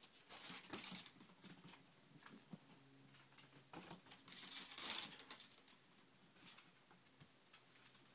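Small Yorkshire terrier puppy scampering across a hardwood floor, its claws clicking and pattering, with two louder rustling, scuffling bursts, one about half a second in and one around four to five seconds in.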